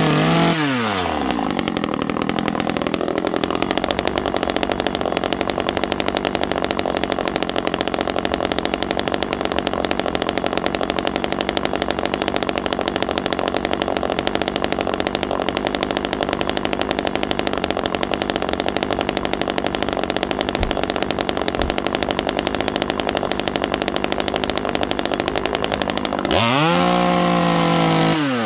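Small 25cc two-stroke top-handle chainsaw engine dropping from high revs to idle in the first second, idling steadily, then blipped to full throttle near the end and coming back down. The owner judges it to be running way rich on its untuned carburettor.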